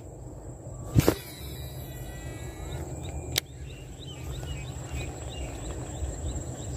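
A baitcasting rod whipped through a cast about a second in, a sharp swish, followed by the reel's spool whirring as the line pays out, then a sharp click about two seconds later. Wind rumbles on the microphone throughout, and faint regular chirps come in during the second half.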